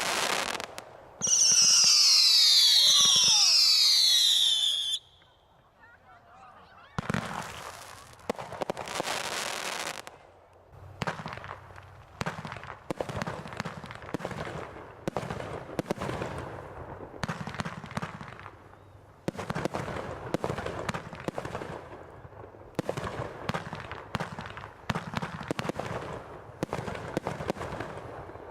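Consumer fireworks going off: about a second in, several loud whistles fall in pitch together for about four seconds and cut off. After a short lull come a few seconds of hissing, then a long run of rapid crackles and pops.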